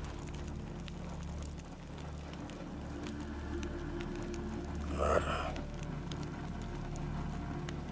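Soft rain patter, scattered drops over a low steady hum, with a short breathy rush about five seconds in.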